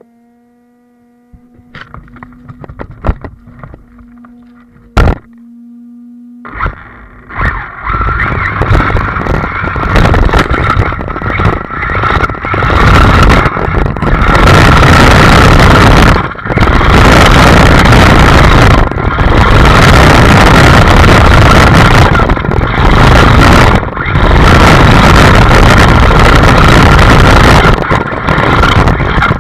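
Arrma Talion RC truggy heard close up from its onboard camera. At first there are a faint steady hum, light rustles and a sharp knock about five seconds in. From about six and a half seconds its brushless motor and tyres drive over rough ground very loudly, dipping briefly several times.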